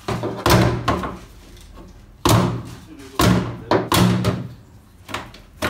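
Hammer blows, about six, struck irregularly at the white plastic part of a Ford Focus mk2's bonnet lock release mechanism, each a sharp knock with a short hollow ring. The mechanism is being smashed on purpose because the broken release cable leaves no other way to open the bonnet, and the part breaks off under the blows.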